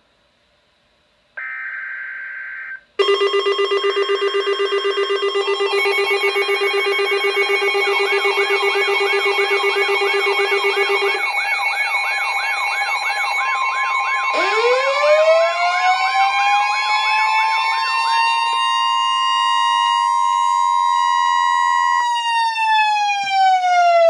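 Several NOAA weather radio receivers sounding their alert alarms at once for a flash flood warning: steady tones and warbling beeps layered together, starting suddenly about three seconds in. Just before that comes a short burst of data noise, the broadcast's digital SAME header. About fourteen seconds in, a siren tone winds up, holds, and starts to wind down near the end.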